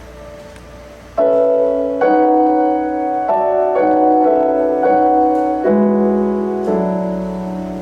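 Solo keyboard in a piano sound playing slow, held chords: a soft chord fading out, then a new chord struck about once a second, each ringing on and slowly dying away.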